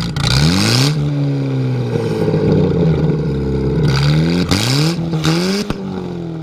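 Car engine revving: the pitch climbs in the first second and settles, then rises again in quick blips after about four seconds before easing back toward idle.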